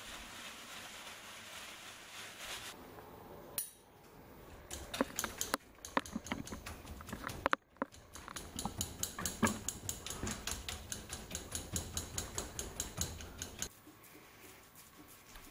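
Paper towel rubbing a wet pork belly rind dry, then a quick, even run of metal forks stabbing into the rind, about three pricks a second for several seconds.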